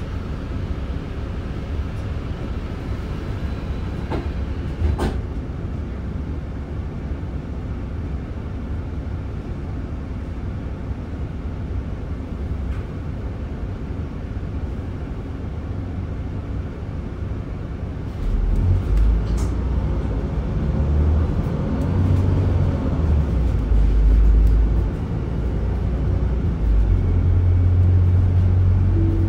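Cabin sound inside an Alexander Dennis double-decker bus: the engine runs with a steady low rumble under the hiss of the air conditioning, with a couple of short clicks about four and five seconds in. From about 18 seconds in the engine grows louder and the rumble turns uneven as the bus pulls away and accelerates.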